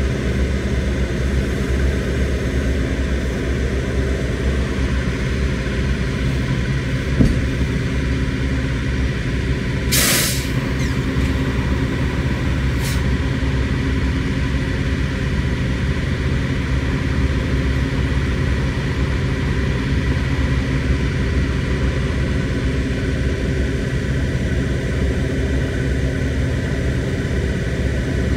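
Semi truck idling with a steady low diesel rumble. About ten seconds in comes one short, sharp hiss of air from its air brakes, with a fainter short hiss a few seconds later.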